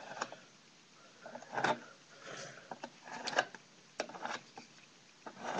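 A paint stir stick scraped and knocked against the edge of the paint container to wipe the leftover paint off it: irregular short scrapes and light knocks, with a longer scrape about a second and a half in.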